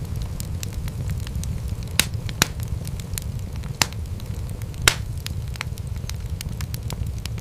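Wood fire crackling with frequent small clicks over a steady low rumble of the flames. A few louder pops stand out, the loudest about five seconds in.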